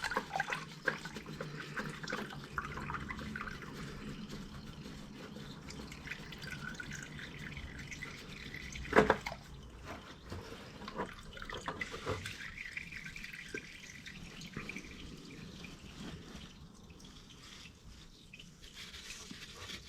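Warm engine oil from a Honda GL1800 Gold Wing draining and dripping into a drain pan, with its oil filter just removed. Scattered light handling clicks, and a louder knock about nine seconds in.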